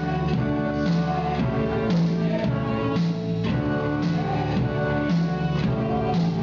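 A children's ensemble playing live on electronic keyboards and an electric guitar, with a steady beat of about two strokes a second under held keyboard notes and a moving bass line.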